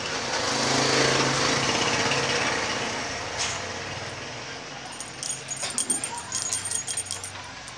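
A small engine going by swells to its loudest about a second in and fades over the next two seconds, then a run of sharp crackling clicks fills the last few seconds.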